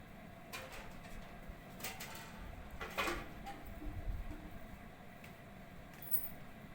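A few faint clicks and short scrapes from small tools being handled on a repair bench during soldering work on a phone's charging jack, over a low steady background hum. The loudest scrape comes about three seconds in.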